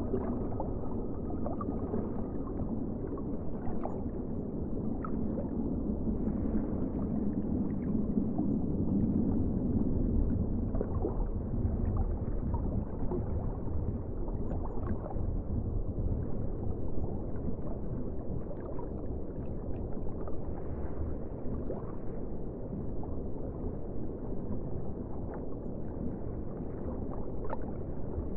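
Underwater ambience: a steady, muffled low rumble of water, with scattered faint clicks.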